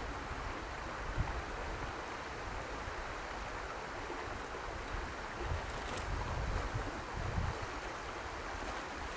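Wind gusting on the microphone over a steady hiss of rain, with a couple of faint ticks about six seconds in and near the end.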